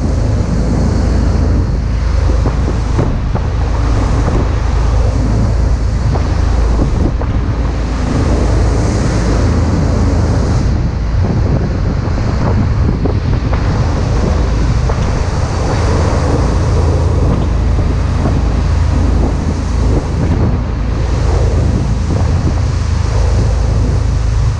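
Wind buffeting the microphone over the steady low drone of a rescue vessel's engines while towing, with the rush of its churning wake.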